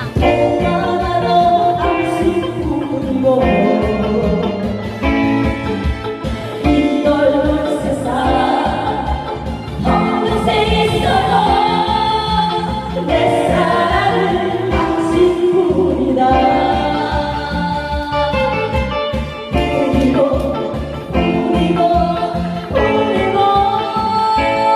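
A song with a singing voice over instrumental accompaniment with a steady beat.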